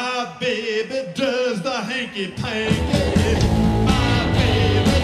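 Live garage-rock band: a male singer's wordless yelps and wails into the microphone, swooping up and down in pitch. About two and a half seconds in, the full band comes in louder with drums, bass and electric guitar.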